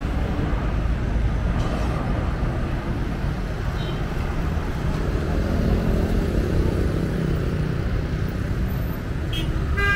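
Street traffic ambience: a steady rumble of motor traffic going by, with faint voices.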